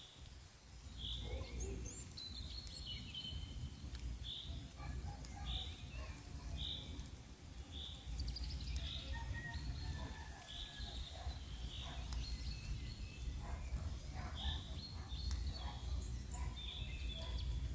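Click beetle (Elateridae) sounding a short, high note over and over, roughly once a second, over a steady low rumble and scattered faint chirps.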